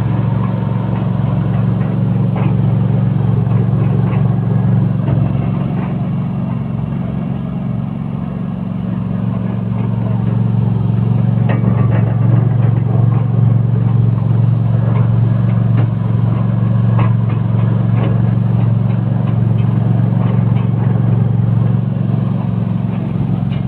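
A machine running steadily with a loud, low hum and scattered clattering clicks. It eases off a little around seven or eight seconds in, then builds back up.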